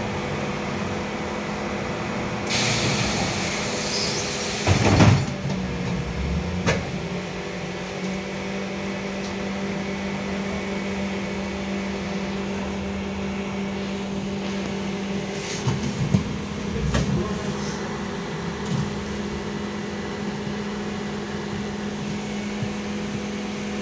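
Inside a LiAZ-5280 trolleybus on the move: a steady hum with fixed low tones, a burst of compressed-air hiss a few seconds in, then a heavy thump and scattered clicks and knocks.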